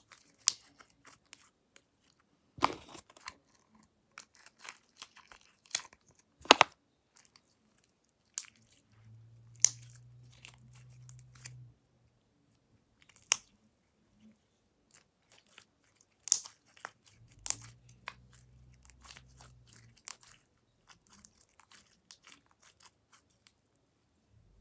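Slightly sticky homemade glue slime being kneaded and stretched by hand, giving irregular wet clicks and sharp pops.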